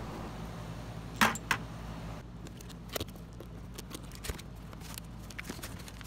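Scattered light clicks and knocks from hands handling parts, the loudest a little over a second in, over a steady low hum.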